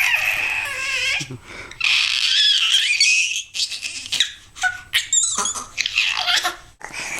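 A baby's high-pitched squeals and whiny fussing, in short sliding bursts broken by brief pauses.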